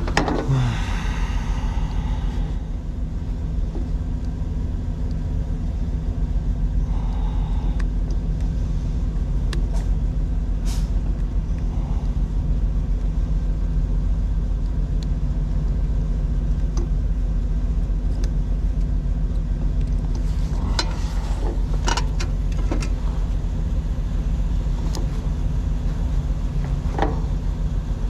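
Truck engine idling steadily with an even low hum. Now and then there are light clicks and knocks of tools being handled, most of them in the last third.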